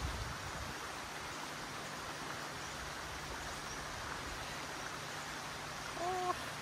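Steady, even background hiss, with a brief pitched sound that rises and then holds, about six seconds in.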